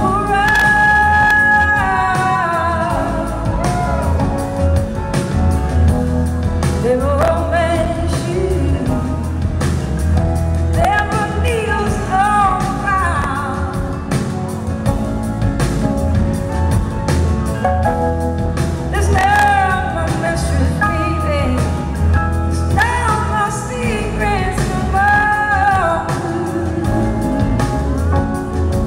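Live blues-rock band playing a slow song, with a woman singing lead in long, wavering phrases over electric guitar, bass and drums. It is heard from the audience, with a heavy bass.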